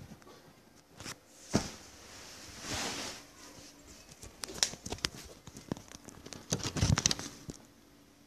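Handling noise of a phone being moved about in the hand: scattered knocks and clicks with rustling, the sharpest knock about one and a half seconds in and a close run of knocks near the end.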